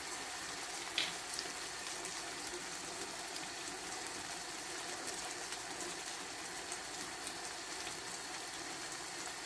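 Beef and vegetable stew simmering steadily in a stainless steel pan, with one light click about a second in.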